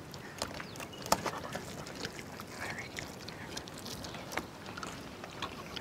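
Quiet open-air background hiss with a few sharp clicks and small crunches scattered through it: crab shells being cracked and eaten by hand.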